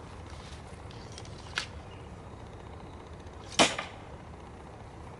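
A light click, then about two seconds later a sharp, much louder smack with a brief rattle after it: a 3/8-inch drill bit flung from a homemade PVC-pipe drill bit thrower and striking a cardboard pizza box.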